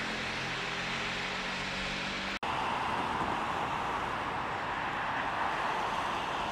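Steady hiss of rain with a low, even hum beneath it for about two seconds. After an abrupt cut, turbulent floodwater rushes loudly and evenly through a walled concrete channel.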